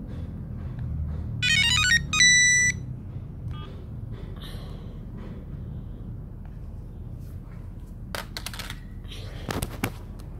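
A mobile phone's short electronic tune: a quick run of beeping notes, then a held beep, about two seconds in, as a phone is switched on and comes up asking for a SIM card. Near the end, a few sharp clicks and knocks.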